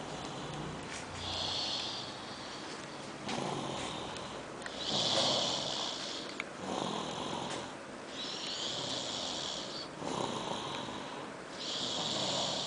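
A sleeping child snoring: a hissing, raspy snore with each breath, repeating about every second and a half.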